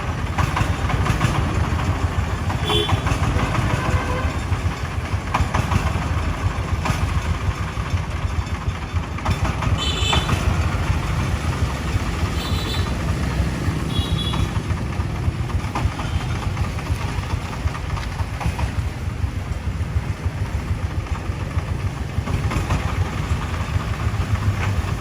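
Diesel engine of heavy construction machinery running steadily, with a low pulsing note. A few short high squeaks and light metallic clicks come near the middle.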